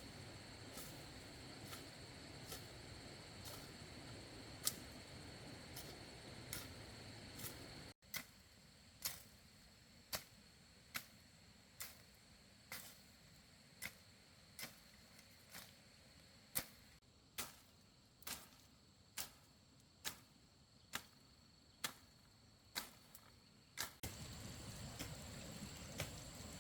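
Evenly spaced sharp knocks, about one a second, over a faint steady high tone.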